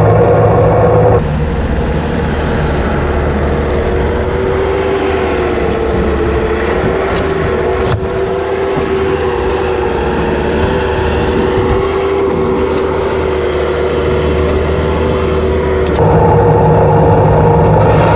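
Skid steer engine running steadily under load, with a steady hydraulic whine on top. The sound changes abruptly about a second in and again near the end.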